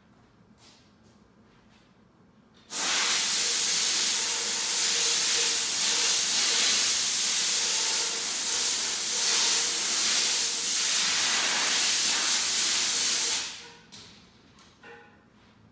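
Compressed air blowing on a hot, freshly TIG-welded aluminum intercooler pipe to cool it: a loud, steady hiss that starts suddenly about three seconds in and cuts off after about ten seconds.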